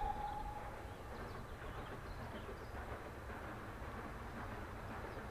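BR Standard Class 9F steam locomotive approaching with its train: a faint, steady low rumble with a light hiss. The tail of its whistle dies away in the first moment.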